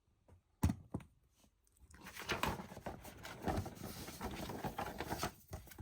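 Paper and packaging being handled: a single knock just over half a second in, then from about two seconds in a continuous rustling and crinkling with small clicks.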